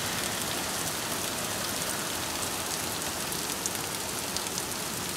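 Heavy rain pouring steadily in a storm, a dense even hiss with scattered drops ticking close by.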